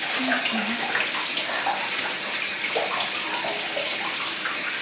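Shower water running steadily, spraying and splashing in a tiled shower.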